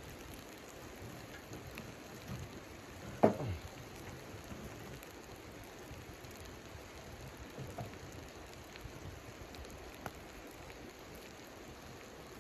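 Steady hiss of falling precipitation pattering on a surface, with one sharp knock about three seconds in and a few fainter ticks.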